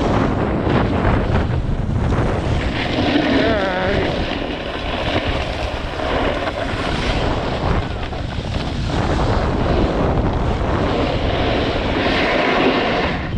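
Heavy wind buffeting the microphone while a snowboard slides and scrapes over packed snow, the hiss swelling and easing as the rider turns.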